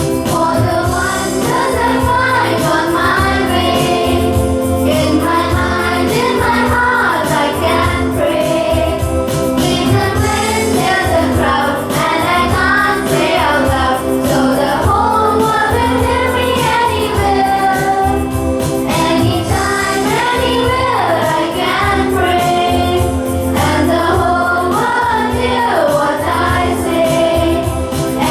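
A group of children singing a song together over instrumental accompaniment with steady held bass notes.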